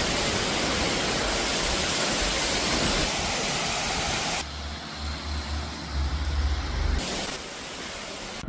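Steady rushing noise of falling water from a waterfall. It cuts off abruptly about four and a half seconds in, giving way to a quieter rush with a low rumble. The louder rush returns briefly about seven seconds in.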